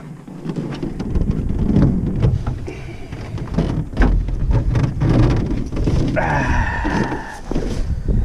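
A canoe being lowered off the shoulders at the end of a portage carry: loud rumbling handling noise with repeated knocks and thumps, and a brief higher-pitched sound about six seconds in.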